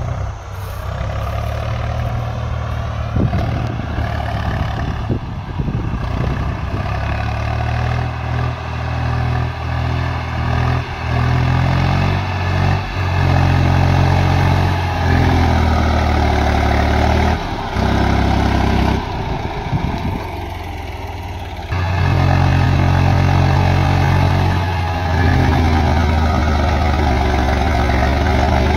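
Swaraj 834 XM tractor's three-cylinder diesel engine working hard to pull a fully loaded trolley of about 70 sacks, its engine speed rising and falling. It grows louder as the tractor approaches and dips briefly about twenty seconds in.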